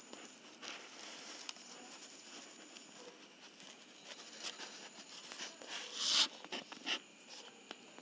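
Thin clear plastic bottle crinkling and clicking as it is held and turned in the hand: scattered sharp clicks and short rustles, the loudest a rustle about six seconds in.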